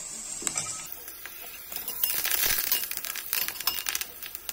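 Fresh curry leaves crackling and sizzling in hot coconut oil in a steel pan, with a metal spatula stirring and scraping the pan; the crackle thickens about two seconds in.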